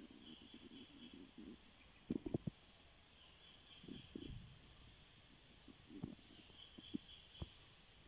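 Faint forest insect chorus: a steady high-pitched hum, with a chirping call that repeats about every three seconds. A few soft, short knocks sound about two seconds in and again near the end.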